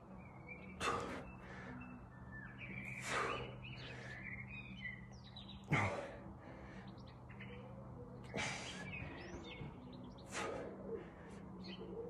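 A person breathing out sharply with each pike press-up, one short breath about every two and a half seconds, with small birds chirping in the background and a low steady hum.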